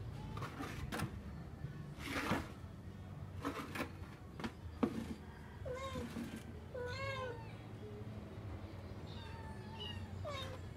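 A cat meowing several short times in the second half, with a few light knocks and a brief rustle before it.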